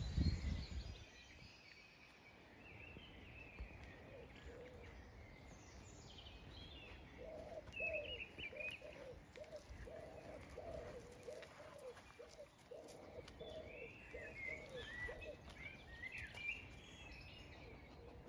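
Wild birds singing, with scattered high chirps and phrases throughout. About seven seconds in, a pigeon starts cooing in a run of low, evenly repeated coos that lasts about eight seconds. A brief low rumble comes at the very start.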